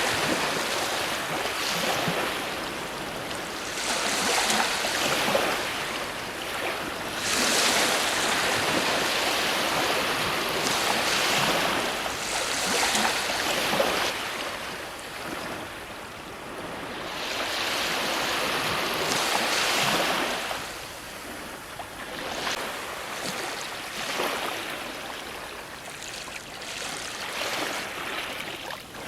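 Ocean waves breaking and washing up a shore, a rushing surf that swells and fades every few seconds.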